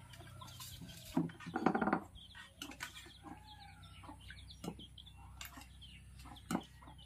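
Chickens clucking, with a few sharp clinks of a steel serving spoon against steel bowls and plates.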